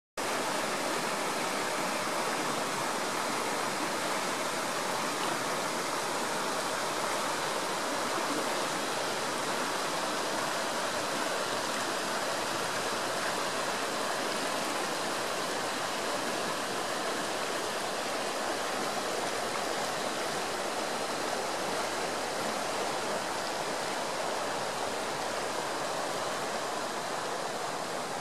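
Shallow, clear Frio River water running over limestone ledges and stones in small riffles: a steady, even rush of moving water that does not let up.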